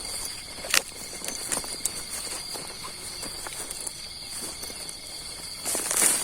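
Night insects chirring steadily at several high pitches, with footsteps and rustling through vegetation. One sharp click comes just under a second in, and a louder rustle comes near the end.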